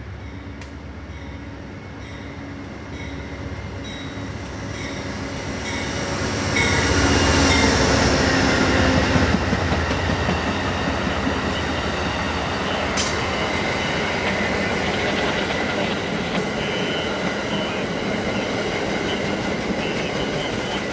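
Amtrak P42 diesel locomotive approaching and passing at speed, its engine growing louder to a peak about seven seconds in. Then comes the steady running noise of passenger cars rolling by on the rails, with a sharp click about thirteen seconds in.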